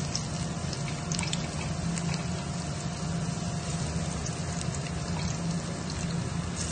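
Minced garlic sizzling in hot corn oil in an aluminium pot: a steady sizzle with a few sharp crackles about a second in, over a low steady hum.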